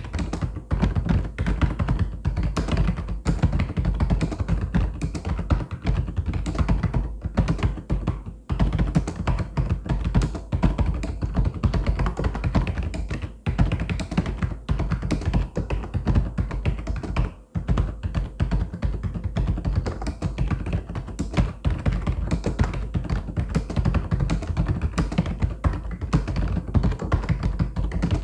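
Mechanical keyboard typed on in a rapid, continuous stream of clacking keystrokes, with brief pauses about 8, 13 and 17 seconds in.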